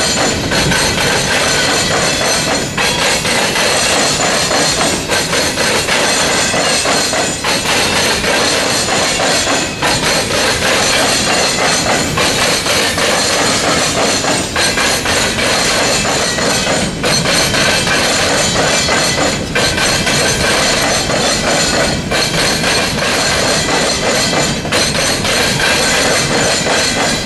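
Steel wheels of Norfolk Southern coal hopper cars pounding across a railroad diamond crossing: a continuous loud clatter of wheel impacts as car after car rolls over the crossing frogs, with a steady high-pitched ringing over it.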